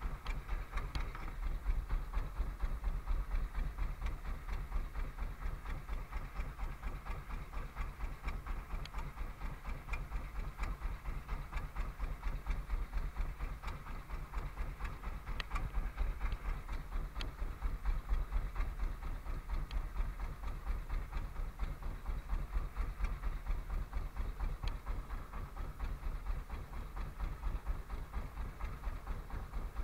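Small fishing boat's engine idling steadily, a low, rapid chugging with no change in speed.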